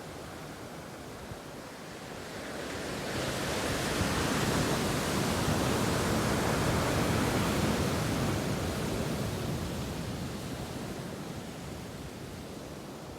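Ocean surf: a wave breaks and rushes in, the hiss building over a couple of seconds, holding, then slowly fading back, with wind on the microphone.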